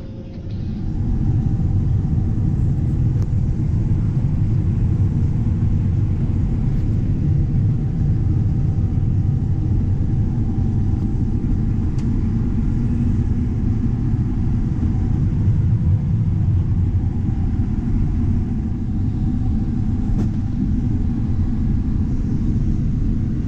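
Combine harvester running while harvesting corn: a steady low rumble of engine and threshing machinery, heard from inside the cab.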